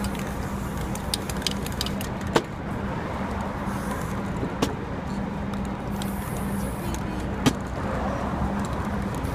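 Aerosol spray-paint cans hissing in short bursts, with a few sharp clicks and knocks of cans handled on a folding table, over steady street traffic noise.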